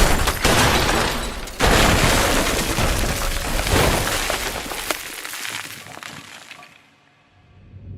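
Anime crash sound effect: a sharp hit, then a second, louder crash about a second and a half in, with breaking and shattering debris that dies away to near silence near the end.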